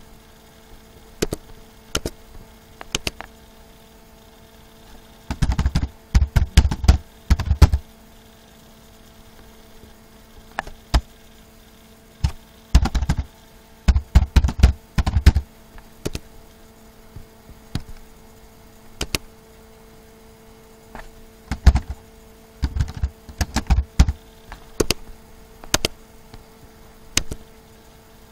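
Computer keyboard typing in short bursts of rapid keystrokes, with single clicks in the pauses between bursts, over a faint steady hum.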